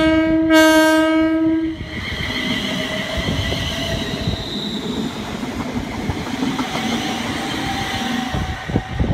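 Train horn sounding one note, broken briefly just after the start and ending about two seconds in, followed by a passing train's steady wheel-on-rail rumble with rhythmic rail clicks.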